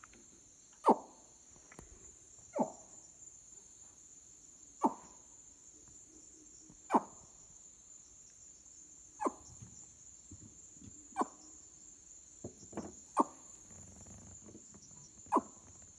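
A steady high-pitched chorus of night insects from the swamp. Over it comes an animal's short call, falling steeply in pitch, repeated about every two seconds.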